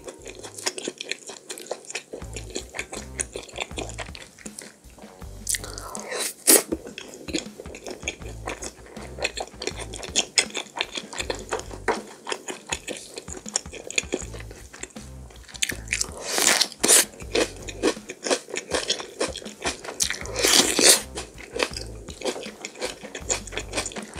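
Close-miked chewing of a mouthful of fried breaded pork cutlet: a steady run of small crunching and wet mouth clicks, louder for a moment a few times.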